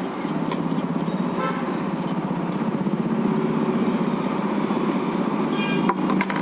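Road traffic: a vehicle engine running steadily, with short horn toots twice, about a second and a half in and near the end.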